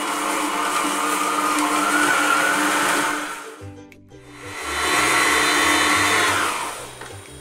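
Stand mixer running at low speed, its K-beater working butter into flour and icing sugar toward a sandy crumb: a steady motor hum with a whir that rises slightly. Around the middle it drops out briefly, then the mixer comes back with background music carrying a low bass line.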